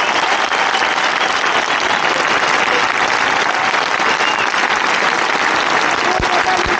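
A large crowd applauding steadily, many hands clapping at once.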